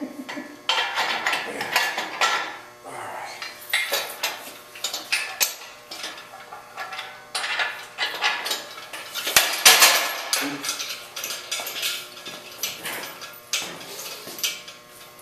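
Steel parts of an engine hoist clanking and rattling as it is put together by hand: irregular metal knocks and scrapes, the loudest about ten seconds in.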